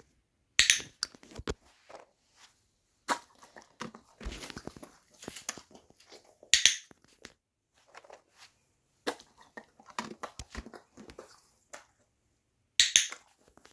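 Dog-training clicker giving sharp clicks every few seconds, each paired with a dog crunching a piece of dry kibble or biscuit as his reward.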